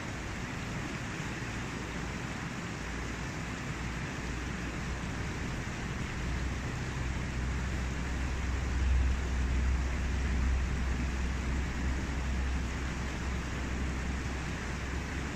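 Mountain stream rushing over rocks in a steady, even rush, with a low rumble under it that swells about halfway through.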